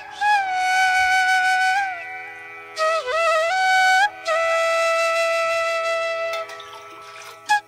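Background music: a slow melody of long held notes that slide between pitches over a steady lower tone, fading out near the end.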